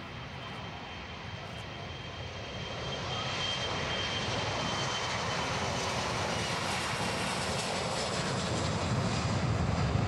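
Jet airliner engines: a steady rushing noise with a thin high whine, growing louder about three seconds in and staying loud, with a deeper rumble building near the end.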